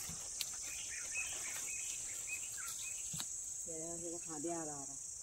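Steady high-pitched chorus of insects, a continuous shrill buzz with no break. A short spoken voice comes in about four seconds in.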